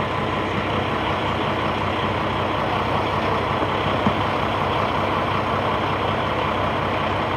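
Diesel engine of a Peterbilt roll-off truck running steadily, with one short knock about four seconds in.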